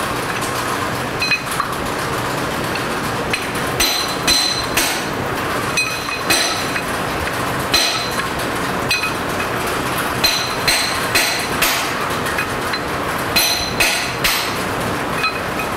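Hammer blows on metal, about twenty sharp ringing strikes coming irregularly, often about half a second apart, as pistons seized in their bores by rust are knocked out of a Case-IH 695 tractor engine block. A steady hiss runs underneath.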